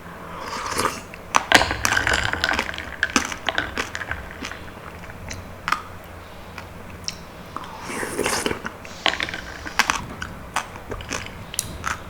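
Close-miked eating sounds: a person biting and chewing soft, sticky palm fruit (sea coconut) flesh, in two wet bouts, about half a second in and again around eight seconds, with sharp clicks scattered between them.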